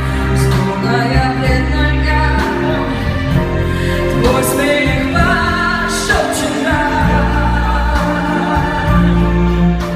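Music: a solo singing voice with instrumental accompaniment, the sung notes held with a wavering vibrato in the middle of the passage.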